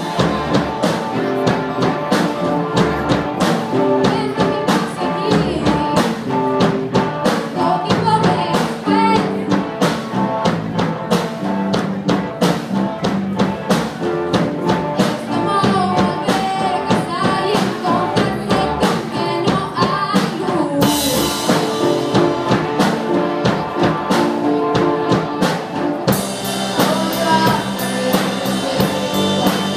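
A live rock band playing a song: drum kit keeping a steady beat, electric guitars and keyboard, with a young female lead singer. The cymbals grow louder and brighter near the end.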